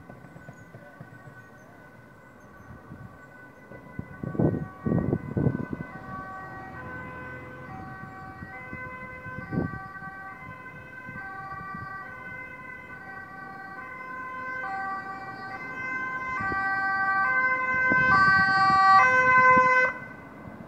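Dutch ambulance two-tone siren alternating between a high and a low note, growing louder as the ambulance approaches and cutting off suddenly near the end. A few short, loud low rumbles come about four to six seconds in.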